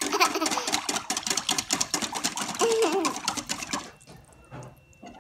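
Wire whisk beating thin crepe batter in a stainless steel bowl, a rapid, even clicking of the wires against the metal as the batter is whisked smooth of lumps. The whisking stops about four seconds in.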